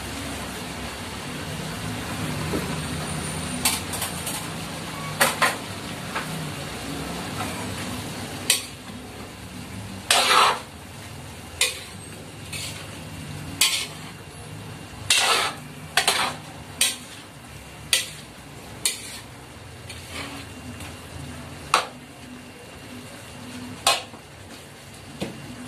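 Spatula scraping and knocking against a metal wok while diced potatoes and carrots are stirred into frying pork. There are about a dozen sharp scrapes and clanks at uneven intervals over a low, steady frying sizzle.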